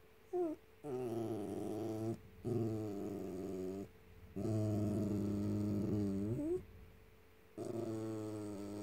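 Small white long-haired dog growling and grumbling in a run of about four drawn-out, pitched vocalizations, several bending up at the end: a grumpy protest at being denied a cookie.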